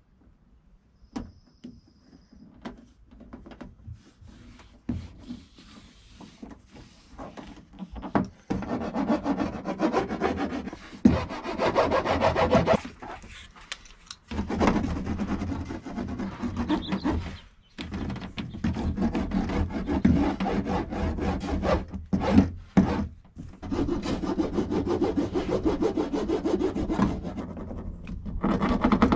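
A hand roller rubbing and pressing foil-faced butyl sound-deadening mat onto a car door's inner sheet-metal panel, in rasping strokes with short pauses. For roughly the first third there are only scattered light crinkles and taps as the foil sheet is handled and placed; after that the rolling is louder and nearly continuous.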